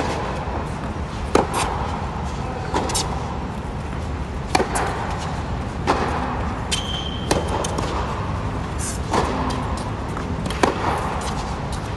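Tennis rally: a ball struck back and forth with racquets, one of them a Wilson Pro Staff 85, giving sharp pops about every one and a half seconds, with bounces on the hard court between them. A brief high shoe squeak on the court comes about seven seconds in, over steady background noise.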